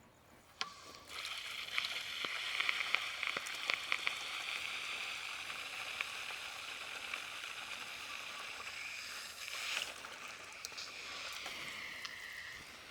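Water running in a steady stream to wet the rooting plugs. It starts about a second in, and near the end the pitch slides down and the stream cuts off.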